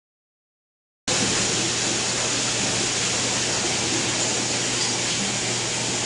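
Steady rushing, water-like noise with a low hum underneath, cutting in suddenly about a second in after dead silence.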